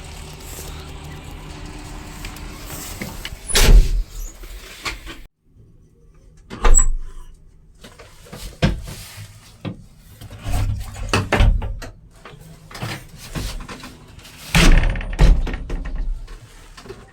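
Heavy diesel machinery running with a steady low hum, broken by several loud knocks and clunks. About five seconds in the running sound cuts out abruptly, and more scattered thumps and clanks follow.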